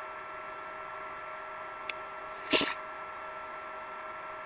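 One short sneeze about two and a half seconds in, over a steady electrical hum, with a faint click just before it.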